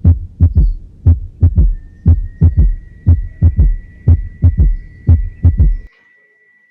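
Heart sounds with a third heart sound (S3 gallop): low thumps in groups of three, about one group a second, in the "Ken-tuc-ky" rhythm. They stop about six seconds in.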